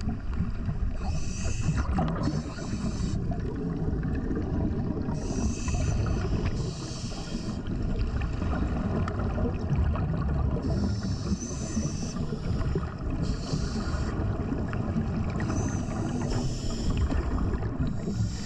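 Underwater rumble of moving water and bubbles from a diver's camera, with short hissing bursts every few seconds.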